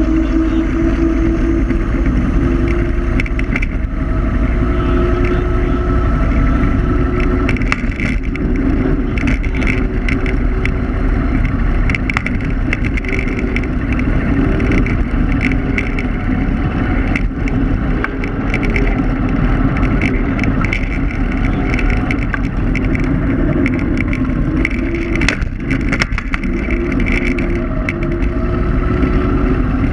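Electric scooter motor whining steadily while riding, its pitch shifting slightly with speed, over a heavy rumble of wind and tyres on asphalt. A few sharp knocks from bumps in the road.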